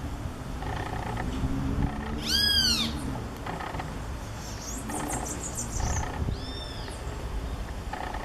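Great kiskadee calling: a loud, shrill note that rises and falls about two seconds in, then a fainter one later, over a steady low background rumble.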